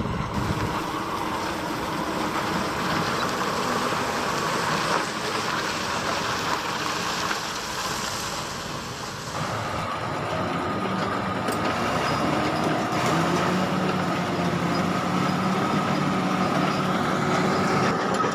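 Heavy vehicle engine running under load. About halfway through the sound changes abruptly to a steadier engine drone with a held pitch.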